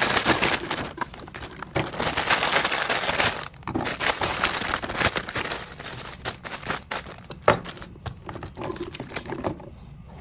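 A plastic packaging bag crinkling and tearing as it is opened by hand and the spout kit is pulled out. Over the last few seconds the crinkling thins to scattered clicks and taps.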